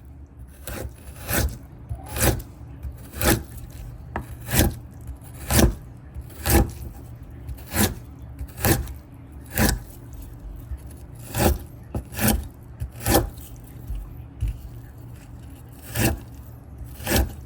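A knife working coconut flesh out of the shell in short scraping, chopping strokes, about one a second, with a brief pause near the end.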